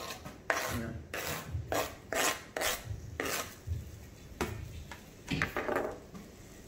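A run of short, irregular rasping knife scrapes: chopped green bell pepper being scraped off a plastic cutting board into a cast-iron skillet, alongside a paring knife peeling potatoes.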